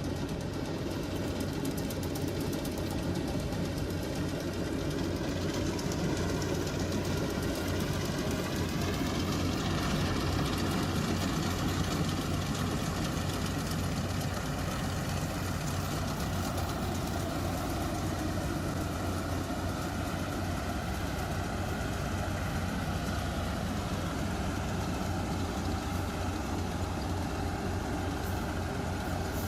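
Engine of a rice harvesting machine running steadily, its pitch rising slightly about eight to ten seconds in.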